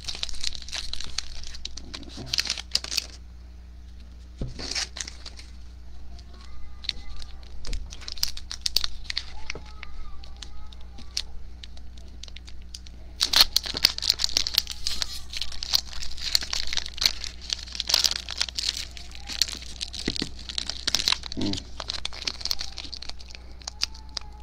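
Plastic wrapper of an Upper Deck Trilogy hockey card pack crinkling and tearing as it is worked open by hand, with the plastic shredding rather than peeling off cleanly. There is a quieter stretch of small clicks from cards being handled in the middle, and dense crinkling over the last ten seconds or so.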